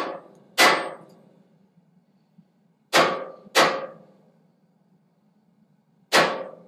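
Hand hammer striking red-hot coil-spring steel on a hardy cutter to cut off a chisel, with five ringing blows: two pairs about half a second apart, then one more near the end. A forge runs with a steady low hum underneath.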